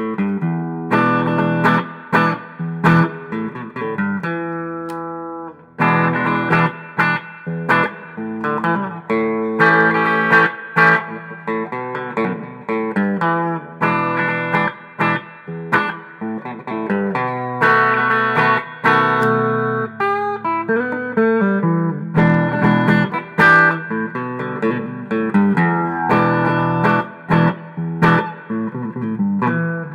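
G&L Comanche electric guitar with Z-3 pickups, played through an amplifier with a very clean tone: picked chords and single-note lines, with one chord left to ring out and fade about four seconds in.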